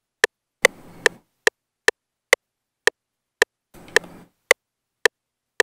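FL Studio's metronome clicking on each beat, slowing as the tempo is lowered from 146 toward 110 BPM: about two and a half clicks a second at first, falling to under two a second by the end.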